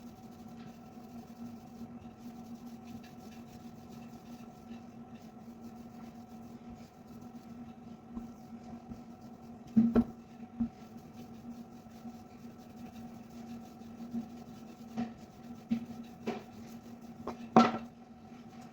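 A steady electrical hum in a kitchen, with a few sharp knocks of utensils or dough tools on a work surface, the loudest about ten seconds in and near the end.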